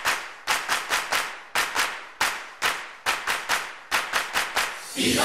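Rhythmic hand claps in a repeating pattern, about four a second, opening a music track. A rushing swell builds near the end.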